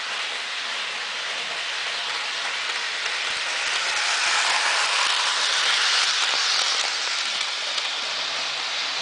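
Electric model train running on sectional track, its motor and wheels making a steady whirring rattle. It grows louder about four seconds in as the train passes close by, then falls back.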